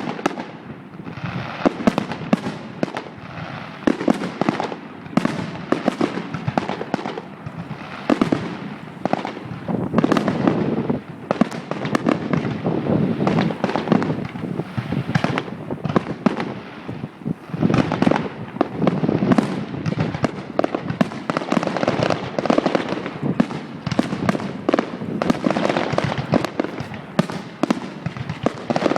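Fireworks display going off: a dense, unbroken run of bangs and crackles in quick succession.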